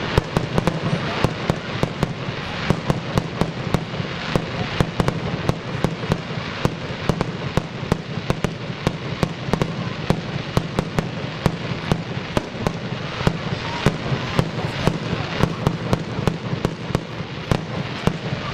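Fireworks display going off continuously: an irregular stream of sharp bangs and crackles, several a second, over a steady background hiss.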